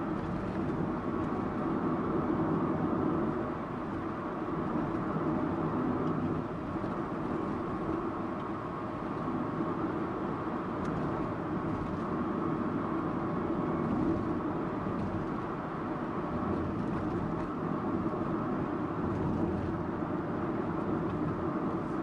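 Subaru Impreza Sports Wagon (GG2) driving along: its flat-four engine hums under steady road and tyre noise, swelling slightly now and then.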